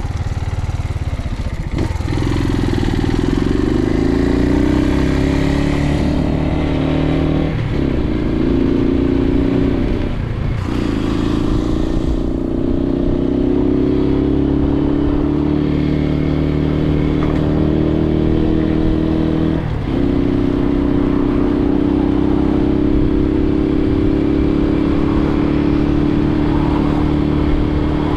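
Suzuki TU250X's air-cooled single-cylinder engine pulling away through the gears. The engine note climbs and then drops sharply at each upshift, about seven, ten and twenty seconds in, then holds a steady cruising note.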